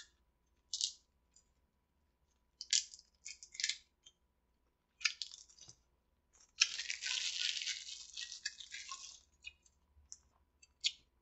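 Plastic wrapper of a watermelon Warheads sour candy crinkling as it is handled and unwrapped: a few short crackles, then a longer run of crinkling lasting about three seconds, ending with a couple of light ticks.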